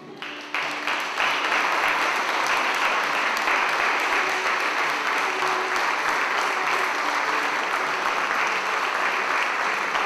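Wedding guests applauding, swelling over the first second or so and then holding steady.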